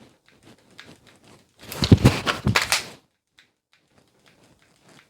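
Pistol handling noise during a dry-fire drill with a Glock 45: scattered light clicks, then a dense burst of louder knocks and rattles about two seconds in that lasts about a second, then a few faint ticks.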